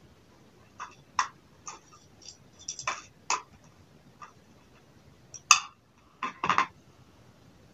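Irregular small clicks and taps from handling small screws and a screwdriver, about a dozen, the loudest about five and a half seconds in, with a quick cluster just after six seconds.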